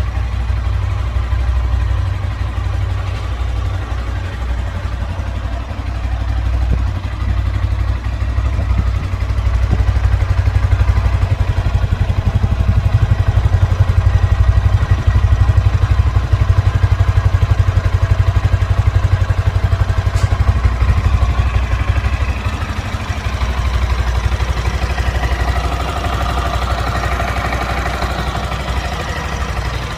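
Stock Yamaha Sniper 155 VVA's single-cylinder four-stroke engine idling steadily through its stock exhaust. The sound grows somewhat louder through the middle, then eases, with a lighter, higher sound joining in near the end.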